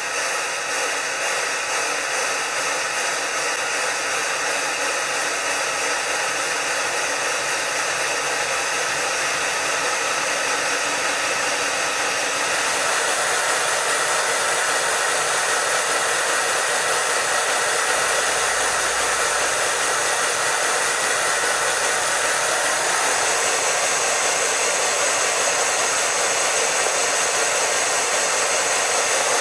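Steady hissing rush from the Bachmann 1:20.3 Baldwin 2-6-0 Mogul model locomotive running with its speed-synchronized steam sound playing. It grows a little louder and brighter nearly halfway through.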